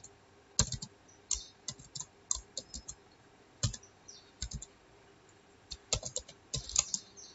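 Typing on a computer keyboard: irregular key clicks, with a pause of about a second past the middle and a quicker run of keystrokes near the end.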